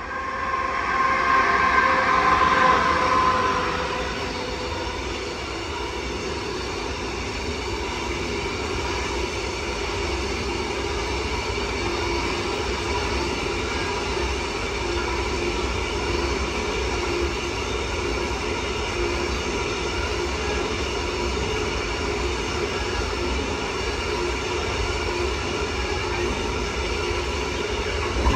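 Freight train of tank wagons rolling past on the rails. About a second in, a louder stretch with several steady tones lasts about three seconds as the locomotive goes by, then the wagons' wheels keep up a steady rolling noise.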